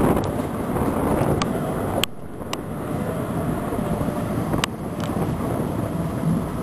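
Moving passenger train heard from an open window: a steady rumble of wheels on track mixed with wind buffeting the microphone. A few sharp clicks stand out, with the rumble dropping a little about two seconds in.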